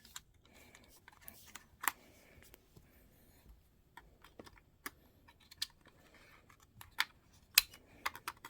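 Irregular small clicks and taps of hands working inside an open laptop, handling its RAM sticks and memory slots, with a few sharper clicks about two seconds in and around seven seconds.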